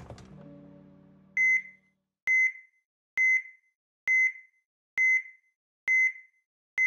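Electronic heart-monitor-style beep repeating about once a second, a short high tone with a faint echo each time, in a logo sound effect. A low tone fades out over the first second.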